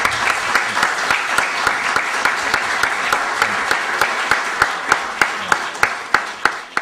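Audience applauding, many hands clapping together, thinning out into fewer, separate claps near the end.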